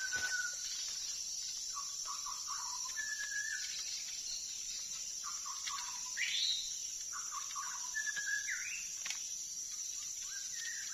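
White-rumped shamas singing: a string of short clear whistled phrases, with two quick rising sweeps in the middle, which the trapper takes for a pair of birds. A steady high insect drone runs underneath.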